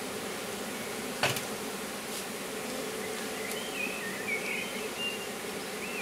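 Honeybees of an open hive colony buzzing in a steady hum, with a single short knock about a second in.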